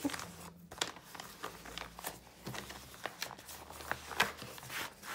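Clear plastic packaging of a cross-stitch kit crinkling softly as it is handled, with scattered light crackles and clicks.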